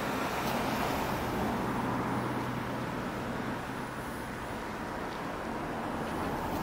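Steady outdoor background rumble with a low, steady hum that stops about four and a half seconds in.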